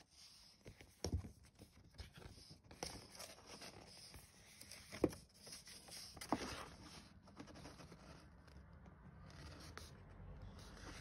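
Faint rustling and scraping of paper and cardboard as a glossy printed leaflet and its cardboard box are handled, with a few sharper taps and clicks, the loudest about five seconds in.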